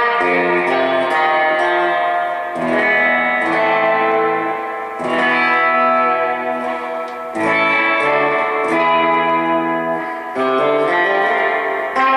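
Electric guitar played through a Gomez El Sonido amp, a Fender Bassman clone, with a Nocturne F-Bomb 63 tube spring reverb unit: chords and notes ringing out with reverb, a new chord struck about every two to three seconds.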